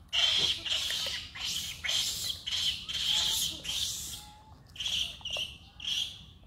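Baby macaque giving repeated high-pitched squealing cries, about two or three a second, with a brief lull a little past the middle.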